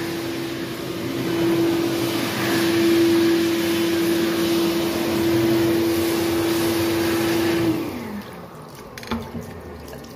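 Electric hand dryer blowing, with rushing air and a steady whine, then cutting out about eight seconds in, its motor whine falling in pitch as it spins down. Near the end, a knock and water running from a push tap into the basin.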